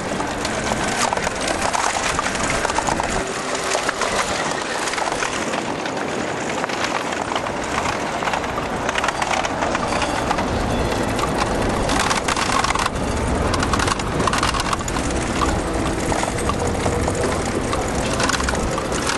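Bicycle rolling over cobblestones: a continuous dense rattling clatter of tyres and frame, with a low rumble joining about halfway through.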